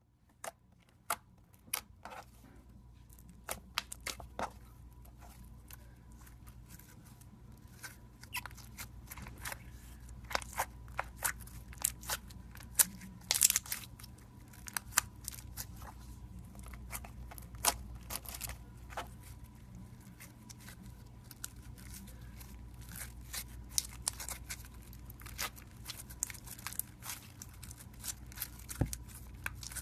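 Slime being worked by hand, giving many irregular sharp crackling clicks and pops over a faint low hum.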